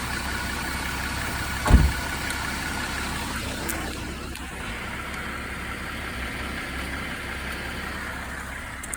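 2022 Jeep Wrangler Willys running steadily under light throttle, with a thin higher drone over the engine noise that fades out about three and a half seconds in. A single low thump just under two seconds in. This is the kind of noise the owner hears at 20–40 mph with a little gas, and its cause is unknown to him.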